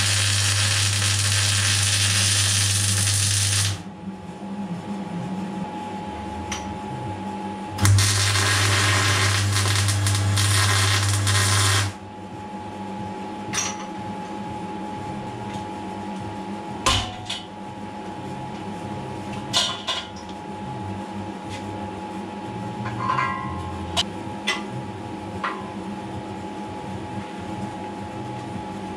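Electric arc welder laying two welds of about four seconds each, a loud crackling hiss over a steady low hum that starts and stops abruptly. In between and afterwards, scattered clicks and taps of metal being handled.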